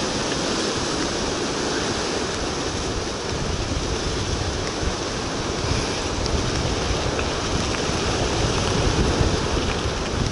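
Steady rushing wind noise buffeting the microphone while moving fast downhill, heaviest in the low end and growing a little stronger in the second half.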